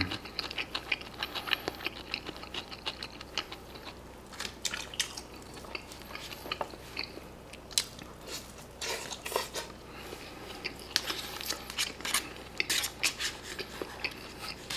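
Chewing and biting into a pork cutlet with pizza sauce and cheese on top, mixed with many short clicks and scrapes of a plastic utensil against a plastic lunchbox tray.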